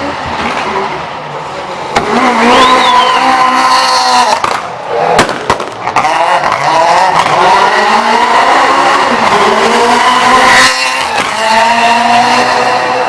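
Citroën Saxo S1600 rally car's four-cylinder engine revving hard up and down, with sharp exhaust bangs: one about two seconds in, a quick cluster around the middle, and another near the end.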